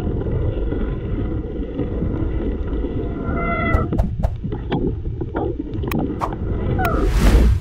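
Mountain bike ridden through wet mud in wind and rain: a steady rumble of wind and tyres, a short high squeal at the start and again about three and a half seconds in, then a run of clicks and knocks and a loud rush of noise near the end.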